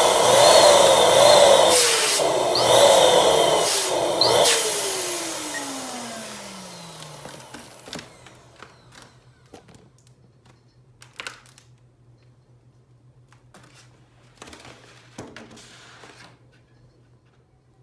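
Electric balloon pump's motor running loud as it blows air into a foil balloon, with brief dips, then switched off about four and a half seconds in and winding down with a falling pitch. Afterwards, scattered crinkles of the foil balloons being handled.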